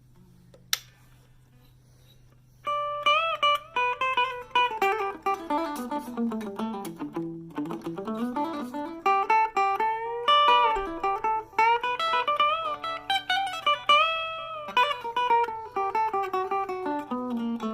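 Harley Benton CST24-HB electric guitar played through a Blackstar Fly 3 mini amp. A steady amp hum and a single click come first. About three seconds in, fast picked single-note runs begin, falling in pitch, then climbing again, and carry on.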